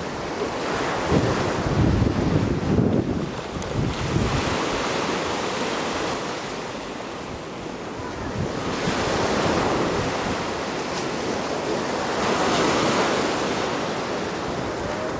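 Ocean surf washing on the shore, swelling twice in the second half as waves come in. Wind buffets the microphone with gusty rumbles in the first few seconds.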